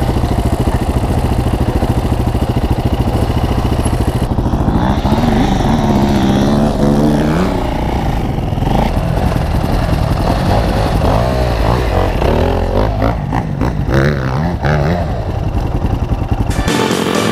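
Enduro dirt bike engine running close to the camera, revving up and down as the bike climbs and rides over rough ground. The sound changes abruptly near the end.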